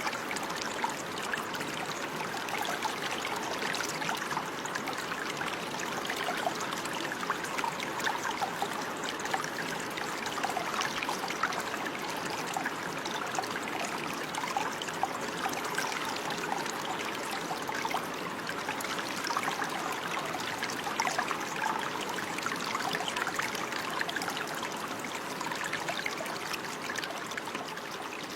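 Shallow stream of water running steadily, with many small splashes and trickles over it.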